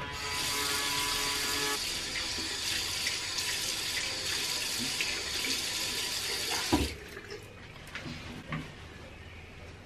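Bathroom tap running into the sink basin for about six and a half seconds, then turned off with a knock; a few small knocks follow in the quieter stretch after.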